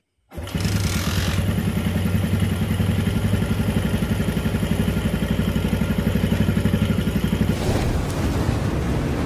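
Yamaha Jupiter MX four-stroke engine idling with an even, rapid beat, after a full rebuild with a new cylinder block set, conrod and timing chain. About a second and a half from the end, a rushing intro sound effect takes over.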